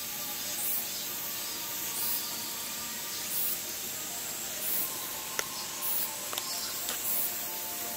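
Steady outdoor hiss with a soft, high rasp that repeats about every second and a half. Two sharp clicks come about halfway through and again a second later.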